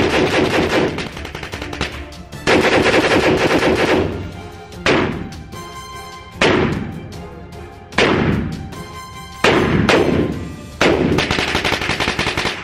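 Rapid gunfire from a firearm with a binary trigger: seven or so quick strings of shots, each ringing out in the echo of an indoor range.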